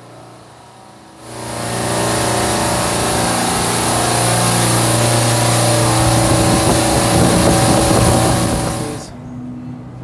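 Supermarket refrigeration compressor rack running: a loud, steady machine hum with a strong hiss over it. It swells up about a second in and drops away suddenly near the end.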